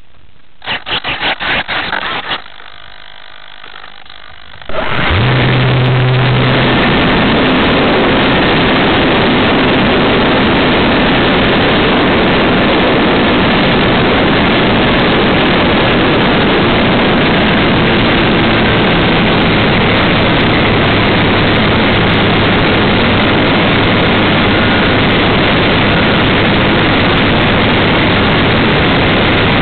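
Onboard sound of a radio-controlled model Wilga airplane. After a few short bursts, the motor opens up about five seconds in and runs loud and steady, with a low hum, through the takeoff and climb.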